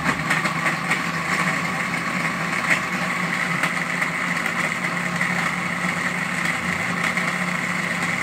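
Electric countertop blender motor running steadily, blending a liquid mix of dates and bidara leaves in water.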